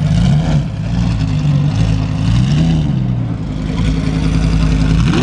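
A car engine idling deeply, blipped on the throttle about three times, the pitch rising and falling with each rev.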